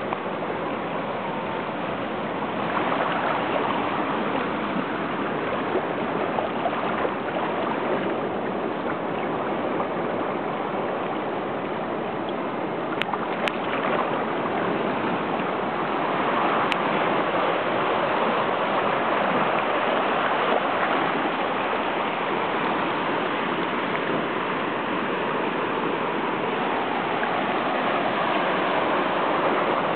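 Shallow seawater washing and swirling over ridges of rock at the water's edge: a steady rush with no breaks.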